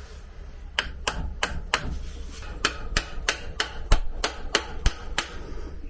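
A dozen or so light hammer taps, about three a second, starting about a second in. They are knocking the rubber grease seal on a Mercruiser Alpha outdrive's prop-shaft cross bearing (U-joint) back onto its seating so it sits flush.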